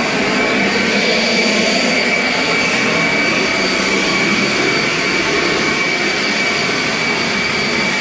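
Greenworks electric leaf blower running steadily, a rush of air with a steady high whine, blowing dirt along a concrete barn floor.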